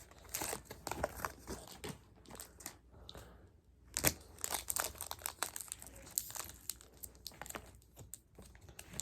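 Foil wrapper of a Pokémon trading-card booster pack crinkling as it is handled and torn open, in irregular crackles with a short lull partway through.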